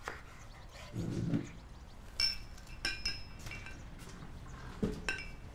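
Crockery and cutlery clinking as breakfast is handled and set on a tray: several light ringing clinks in the middle, a dull knock about a second in, and another knock and clink near the end.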